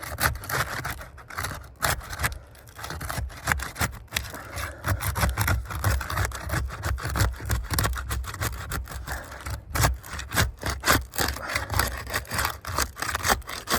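Flat bar scraping and rasping along under roof shingles in a run of short, irregular strokes and clicks as the shingles' seal strips are broken loose.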